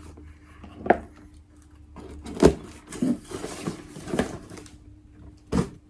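Packaging and small items being handled while a parcel is unpacked: rustling with a string of light knocks and clicks, the sharpest about a second in and again near two and a half seconds.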